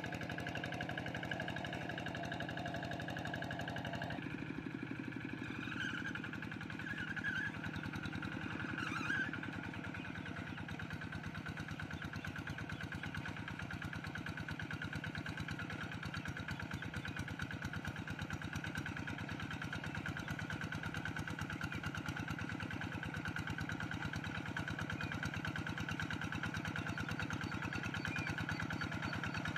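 Two-wheel hand tractor's single-cylinder diesel engine running steadily under load while it tills a muddy rice paddy, with an even, rapid firing rhythm. Its tone shifts about four seconds in.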